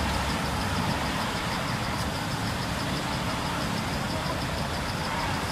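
Steady outdoor background noise: a low, engine-like rumble under a faint high-pitched pulsing at about six beats a second.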